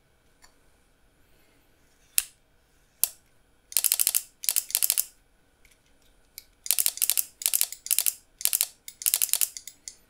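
Relay board on a DIY toy gun clicking as it fires: two single clicks, then several short bursts of rapid clicking like automatic fire, until the magazine counter runs empty.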